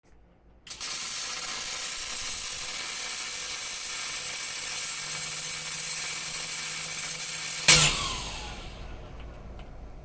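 MIG welder arc crackling and hissing steadily for about seven seconds as a motor mount bracket is welded to the car. It ends with one loud sharp crack, after which the sound dies away.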